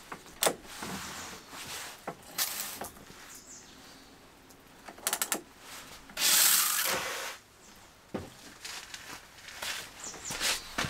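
Gloved hands handling a shower head and its coiled hose on a car's rear door: a series of plastic clicks and knocks with rubbing between them, and a loud hiss lasting about a second roughly six seconds in.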